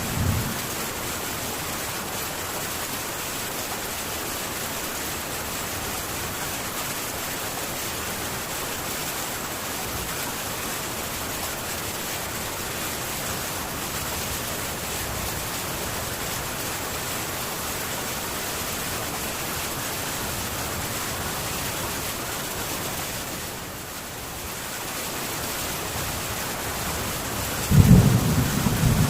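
Heavy rain falling steadily on a metal tin roof. A low rumble of thunder comes in near the end.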